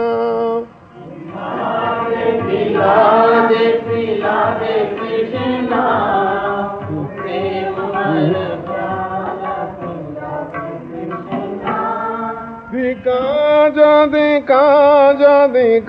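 Devotional Hindi kirtan to Krishna, voices chanting and singing the verses. The singing drops briefly about a second in, then grows louder and clearer near the end.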